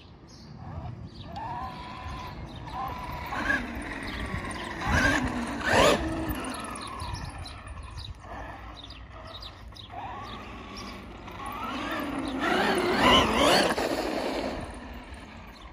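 Large-scale HPI Baja Kraken SX5 RC truck with a brushless motor on an 8S LiPo pack, its motor whine gliding up and down in pitch with the throttle. It is loudest twice, around six seconds and again about thirteen seconds in.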